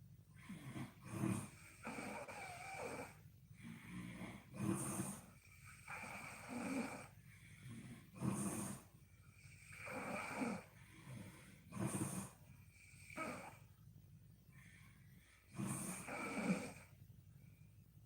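A sleeping woman snoring: rhythmic snores with softer breaths between them, the loudest every three to four seconds.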